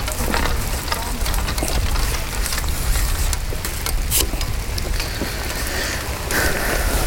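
Heavy rain falling on a plastic bag over the camera: a dense, steady crackle of drops with many sharp taps, over a low rumble.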